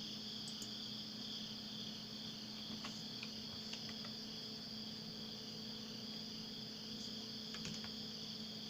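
Insects chirring in a continuous high drone at two steady pitches, over a faint steady low hum and a few soft ticks.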